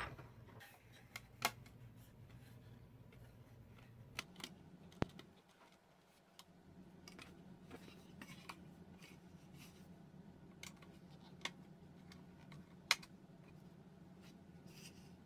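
Scattered small clicks and taps of screws and a magnetic screwdriver being handled while a motherboard is fastened down, over a faint steady hum.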